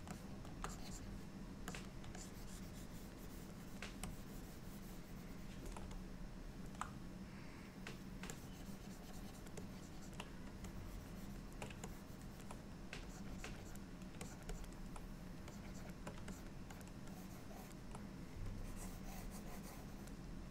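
A pen stylus scratching and tapping on a graphics tablet, with scattered light clicks over a steady low hum.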